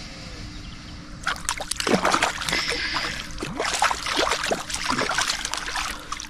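Water splashing and sloshing in quick, irregular bursts, starting about a second in.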